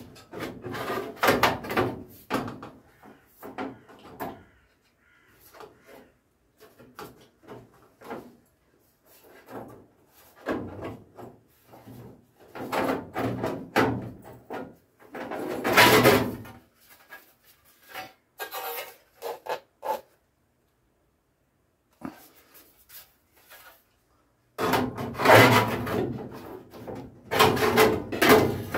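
A bubble-arch panel being hand-bent and pressed against a Mk1 Ford Escort's rear wheel arch: irregular scraping, rubbing and knocking of the panel on the bodywork. It comes in bursts with short pauses, the loudest about halfway through.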